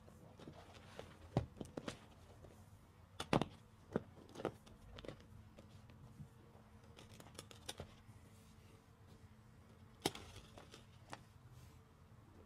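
Soapy car sponge squeezed by hand: irregular wet squelches and crackling pops, the loudest a little over three seconds in and again about ten seconds in.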